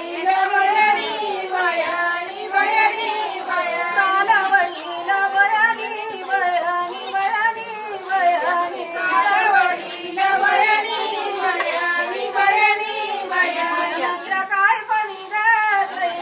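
Women singing a traditional Marathi jatyavarchi ovi (grinding-stone song) as a wedding song: a slow, wavering, unaccompanied melody with no instruments.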